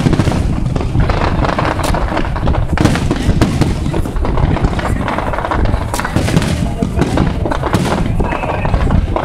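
Aerial fireworks shells bursting overhead, a rapid, irregular string of bangs over a continuous low rumble.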